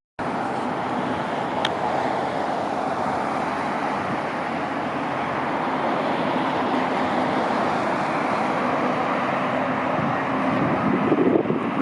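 Jet engines of a heavy airliner landing, a steady rushing noise that swells slightly near the end.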